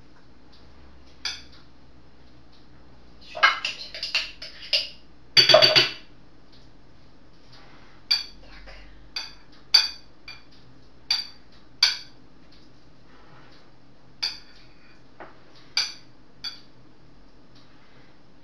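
A spoon clinking and tapping against a glass salad bowl while thick mayonnaise is spread over a salad layer. The clinks are scattered, with a busy cluster and one louder knock around four to six seconds in, then single clinks every second or two.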